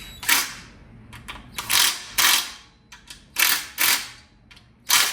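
An old, weak impact wrench driven in about seven short bursts, mostly in pairs, snugging bolts. It puts out only about 8 to 10 foot-pounds.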